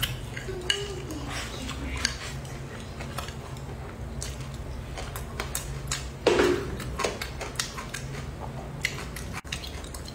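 Close-up eating of braised squid and rice: chopsticks tapping against a bowl in many short clicks, mixed with chewing, and a louder mouthful about six seconds in. A steady low hum runs underneath.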